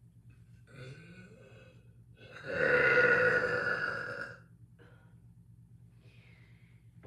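A person burping: a short, quieter sound about a second in, then one long, loud, echoey burp of about two seconds.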